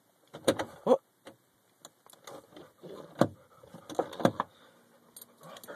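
A car door being opened from inside, with a Siberian husky moving about close by: a scatter of short clicks and knocks, a few with a brief falling edge, spread over several seconds.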